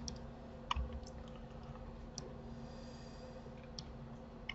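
About six scattered, sharp clicks from a computer mouse and keyboard, over a faint steady hum.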